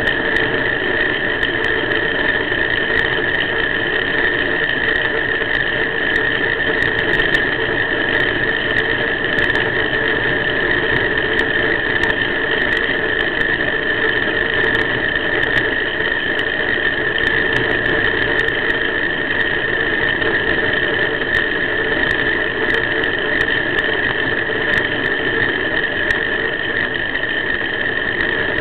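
A steady high-pitched whine that holds one pitch throughout, over a continuous rushing noise of wind and road while moving along the road.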